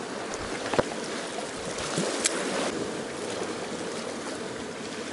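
Small waves lapping and washing against shoreline rocks, a steady watery wash, with a few light clicks about one and two seconds in.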